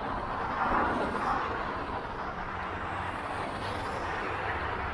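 Steady city street traffic noise, briefly louder about a second in.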